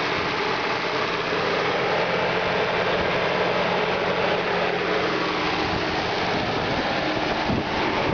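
Farm tractor engine running steadily under load as it tows a pickup truck stuck in mud on a chain.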